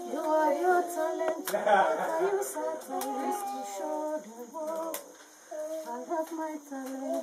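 Women's voices singing a song with no instruments, with a brief pause about five seconds in. A few short sharp knocks sound over the singing.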